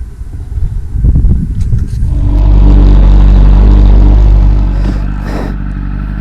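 Kawasaki ZX-10R inline-four engine, exhausting through an Akrapovič carbon slip-on. After some knocks and handling noise it comes in about two seconds in, runs loud and steady, then settles a little quieter toward the end.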